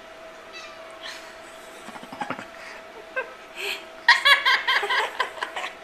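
Laughter: a run of quick laughing 'ha-ha' pulses that starts about four seconds in, with only faint scattered sounds and a thin steady tone before it.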